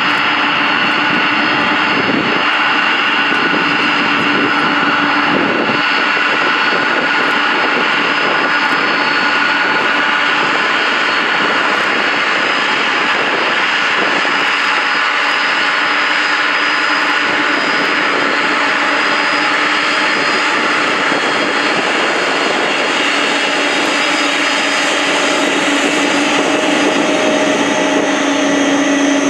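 Boeing 747-400's four turbofan engines at taxi power: a steady loud jet whine and rush with several constant tones, growing slightly louder near the end as the engines draw close.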